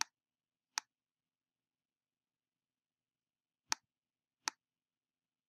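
Computer mouse clicking: four short sharp clicks in two pairs, one pair at the start and another about three and a half seconds in.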